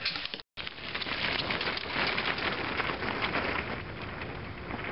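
Wind buffeting the microphone: a crackling rush of noise that is loudest for the first few seconds and eases off near the end.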